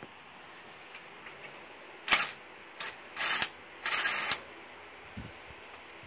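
Ryobi cordless impact driver with a socket, running in reverse in four short bursts to spin the already-loosened lug nuts off a car wheel; the later bursts are the longest.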